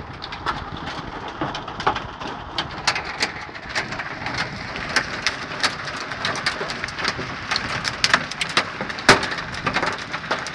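Heavy rain hissing steadily while large hailstones, ping-pong to golf-ball size, strike hard surfaces in sharp, irregular cracks. The loudest hit comes about nine seconds in.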